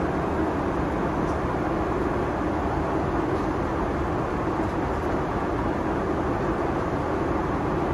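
Steady cabin noise of a Boeing 777-300ER in cruise: a constant low rush of engines and airflow, even in level throughout.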